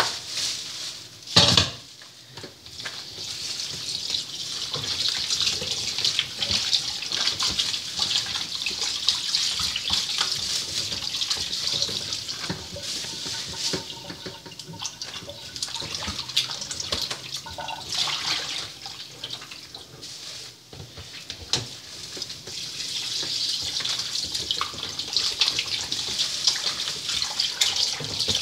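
Kitchen faucet running into a plastic bowl of pork pieces in a stainless steel sink, a hand swishing the meat through the water. A sharp knock about a second and a half in.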